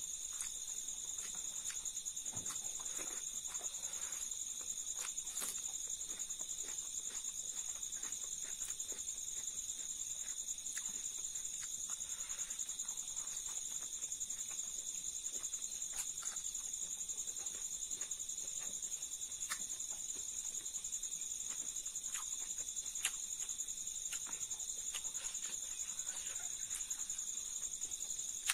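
Insects chirping in a steady high chorus, with scattered small clicks and smacks of chewing and of a hand working rice on a plate.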